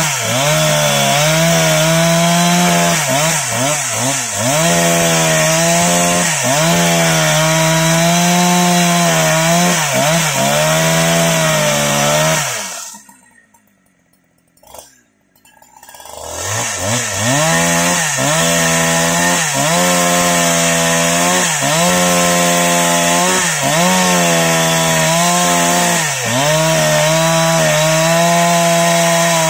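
Husqvarna 365 Special two-stroke chainsaw ripping lengthwise through a teak log at full throttle. Its pitch dips every second or two as the chain bogs in the wood. About halfway through, the sound cuts out to near silence for roughly three seconds, then the saw comes back and keeps cutting.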